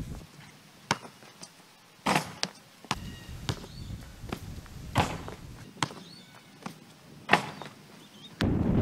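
Basketball bouncing on a hard outdoor court and sneaker footsteps during a dunk run-up, heard as a string of sharp thuds about a second apart, with faint bird chirps. Near the end a steady rush of wind on the microphone starts suddenly.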